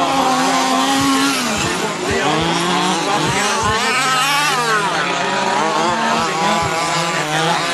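Several large-scale petrol RC buggies racing, their small two-stroke engines revving up and down. Several engine notes overlap, each rising and falling as the cars accelerate and brake through the corners.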